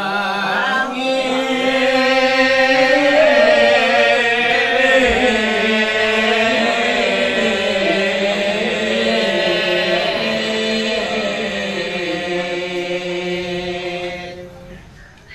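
A man's solo voice chanting a verse of a Sasak hikayat in the nembang style, amplified through a microphone, in long, slowly wavering melismatic held notes. It fades out near the end.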